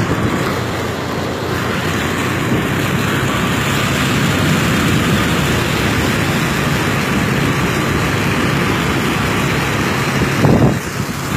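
Motorcycle engine running steadily as the bike rides through floodwater, with the rush of water splashing off the front wheel. The sound turns briefly louder near the end.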